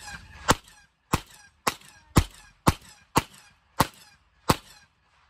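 A firearm fired eight times in quick succession, a shot roughly every half second, each with a short ringing echo, the string ending near the close.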